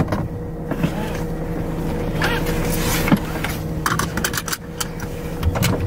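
Car engine idling, heard inside the cabin as a steady low hum. From about four seconds in, a seatbelt is pulled across and buckled, giving a few short clicks and rustles.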